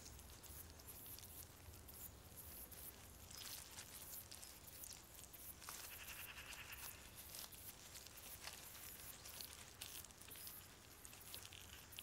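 Near silence: faint ambient hiss with scattered soft clicks and crackles, and a faint brief buzz about six seconds in.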